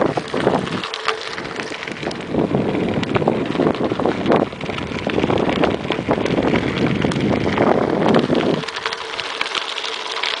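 Mountain bike rattling over a rough gravel trail, tyres crunching on loose stones amid a constant clatter of small knocks, with wind rumbling on the microphone until shortly before the end.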